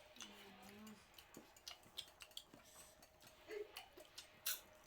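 Faint scattered clicks and taps, irregular and a few a second, with a brief murmured voice just after the start and a faint steady hum underneath.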